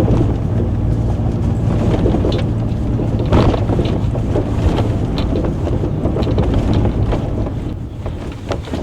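Ford Raptor pickup driving a rutted dirt trail: a steady engine and tyre drone, with several short bursts of water splashing up from puddles against the truck.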